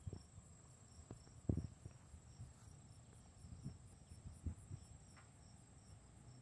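Insects singing: a steady high buzz with chirps pulsing about three times a second. A few dull low thumps stand out over it, the loudest about a second and a half in.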